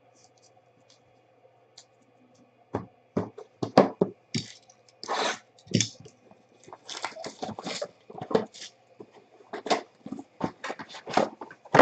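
A sealed cardboard Prime Cuts baseball hobby box being slit open and its lid pulled up. After a quiet start comes a busy run of scrapes, small tears and clicks of cardboard and wrapping.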